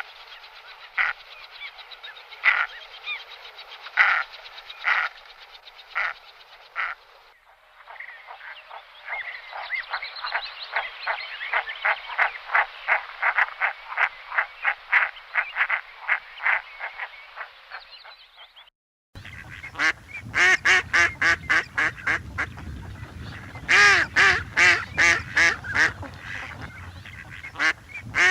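Waterfowl calling: geese or ducks giving repeated honking calls, in three spliced recordings. First come spaced single calls, then a long fast run of calls. Near the end, loud bursts of calls sound over a low rumbling background.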